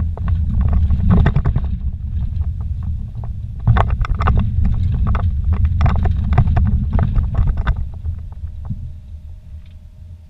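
Vehicle's tires and suspension on a rocky dirt road, heard from inside the cabin: a low rumble with frequent knocks and rattles as the tires roll over the rocks. It dies down about eight seconds in, leaving a quiet hum.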